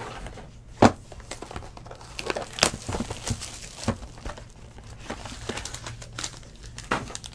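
Foil trading-card pack wrappers crinkling and rustling as they are handled, with scattered sharp crackles; the loudest comes a little under a second in.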